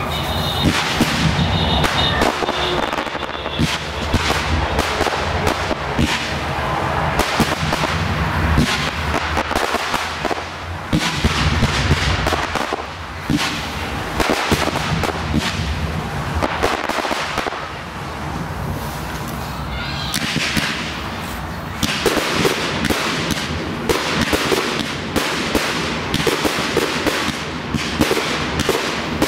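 Fireworks display: aerial shells and crackling effects bursting in rapid, overlapping succession, a continuous barrage of bangs and crackles.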